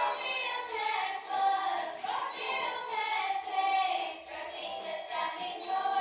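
A song: singing voices over backing music.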